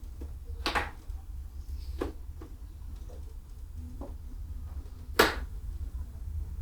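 Clips on a Harley's headlight fairing being popped out by hand: a few sharp clicks and knocks, the loudest about five seconds in, over a low steady hum.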